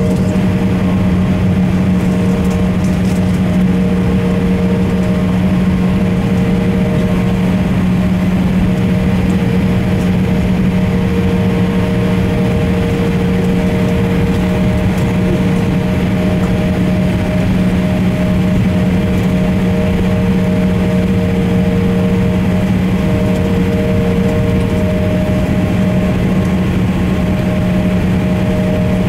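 Steady cabin drone inside an Embraer E170 taxiing with its GE CF34 turbofans at idle thrust: an even rumble with a constant low hum and a couple of fainter higher tones.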